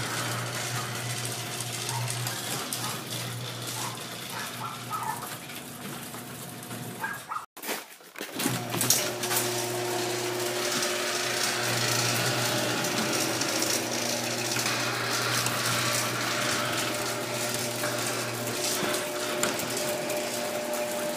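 A motor-driven machine running steadily, with a low hum under a whirring, rattling noise. The sound breaks off abruptly about seven and a half seconds in and starts again slightly louder; the low hum drops away near the end.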